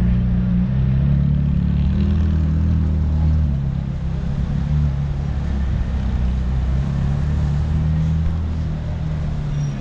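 A motor vehicle engine running with a low, steady rumble, a little louder for the first three or four seconds, over general street traffic noise.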